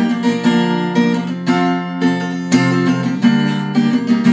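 Acoustic guitar strummed in a steady rhythm, playing the backing of a song without vocals.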